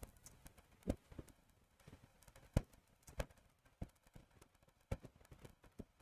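A few soft, irregular clicks, about six of them with the loudest about two and a half seconds in: computer mouse clicks while moving between presentation slides.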